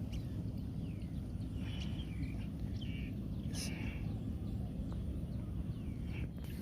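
Open-air rural ambience: a steady low rumble with scattered short bird chirps and calls, mostly in the first half.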